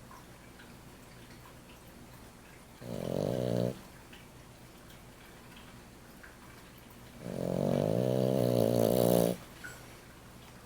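A sleeping pet snoring: two snores, a short one about three seconds in and a longer one of about two seconds near the end.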